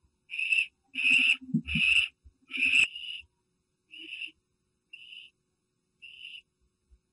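Barn owl giving a series of short, harsh rasping calls, each under half a second, about one a second. Four loud calls come first; after about three seconds they turn fainter.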